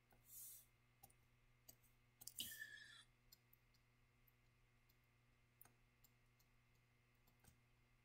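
Near silence: a few faint ticks of a stylus tapping and writing on a tablet screen, over a faint steady hum. About two and a half seconds in there is a brief faint noise that falls in pitch.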